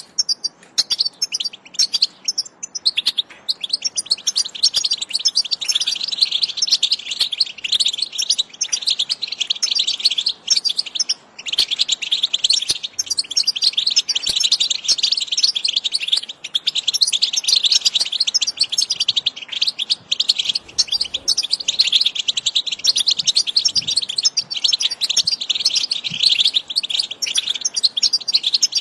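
European goldfinch singing: a continuous, fast, tinkling twitter of rapid high notes, with brief breaks about three and eleven seconds in.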